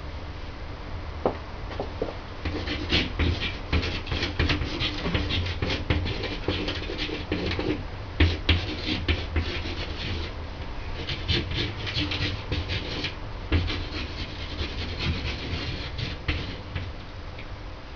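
Marker pen writing on a wall: quick, uneven scratching strokes of handwriting, with short pauses between words.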